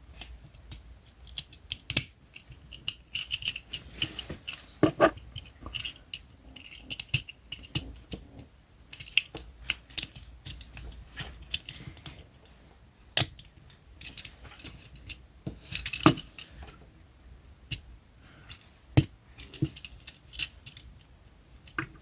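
Plastic Transformers action figure (Leadfoot) being transformed by hand: irregular clicks and snaps of its plastic parts and joints being moved and pressed into place, with a few brief plastic squeaks.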